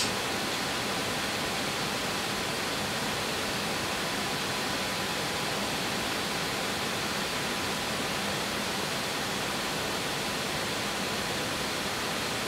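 Steady, even hiss with no other events: the background noise of the recording while nobody speaks.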